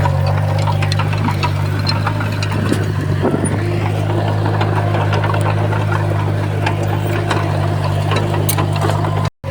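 Heavy diesel engine of earthmoving equipment running steadily, with scattered metallic clanks over the low drone. The sound cuts out for an instant just before the end.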